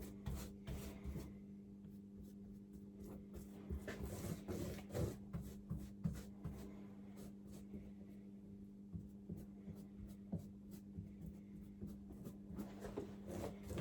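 Paintbrush working firestop paint over a fire batt: faint scratchy brushing strokes and small taps, over a steady low hum.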